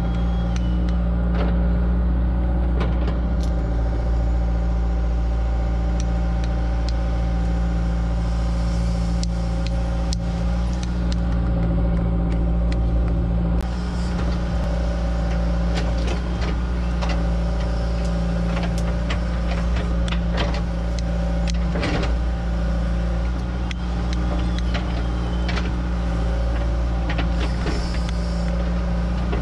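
Excavator engine running steadily, with scattered sharp clanks and knocks over it, most of them in the second half.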